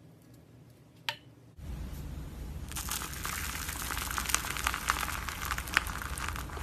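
Slime being squeezed and worked by hand: a dense run of crackling, popping clicks with a few louder snaps, after a quiet start with a single click.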